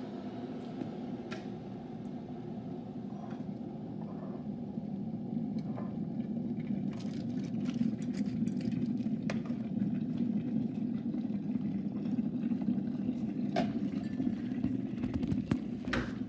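Electric kettle heating water: a steady rumbling hiss that grows louder over the first several seconds, with light clinks of a ceramic canister lid, mugs and a teaspoon on the worktop.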